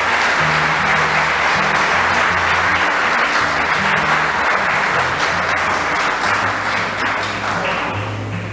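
An audience applauding steadily, the clapping dying away near the end, over background music with a low bass line.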